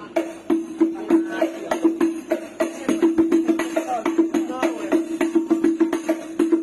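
Hadroh rebana frame drums played together in a fast, steady rhythm: sharp hand slaps over a ringing drum tone.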